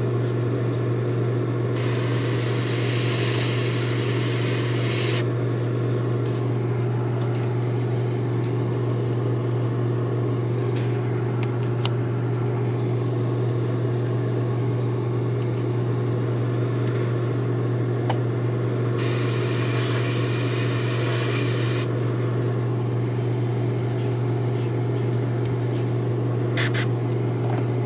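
Airbrush spraying paint through a dot stencil in two hissing bursts of about three seconds each, one about two seconds in and another near the twentieth second, over a steady motor hum.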